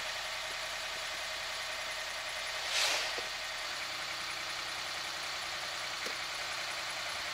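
Dodge Ram pickup's diesel engine idling steadily, with one short swish of snow being brushed off the truck a little under three seconds in.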